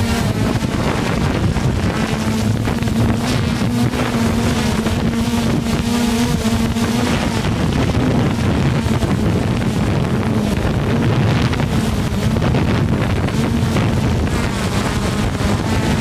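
Hubsan quadcopter's motors and propellers running steadily, a hum with a slightly wavering pitch, with the rush of propeller wash buffeting the microphone.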